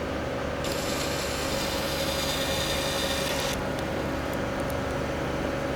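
An orbital welding power supply and cooler hum steadily with a held mid-pitched tone. Just under a second in, a high, even hiss from the weld head starts, lasts about three seconds and cuts off sharply.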